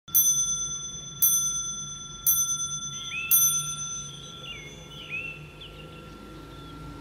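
19th-century French black marble mantel clock striking four, about a second apart, each stroke ringing out and dying away. Faint background music comes in around the middle.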